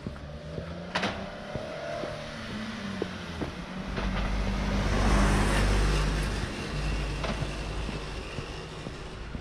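A car driving past close by, its engine and tyre noise swelling to a peak about five to six seconds in and then fading, over the walker's footsteps.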